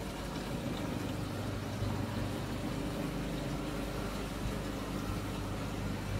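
Steady low hum and hiss of the shop's aquarium systems running: many tank pumps, filters and lights together, with a faint watery wash.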